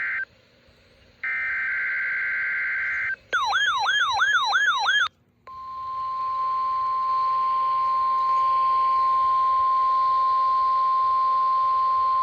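NOAA Weather Radio alert tones: the end of one harsh, buzzy digital SAME header burst, then a full burst of about two seconds, then a brief warbling siren-like sweep. From about five and a half seconds in comes a steady single-pitch warning alarm tone near 1 kHz.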